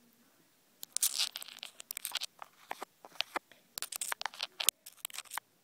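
A hermit crab's legs and claws scrabbling against the phone close to its microphone: a run of irregular, scratchy crackles and scrapes starting about a second in.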